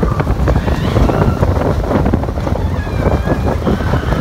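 Wind buffeting the microphone of a rider on the moving Slinky Dog Dash roller coaster, over the rumble of the train running along the track.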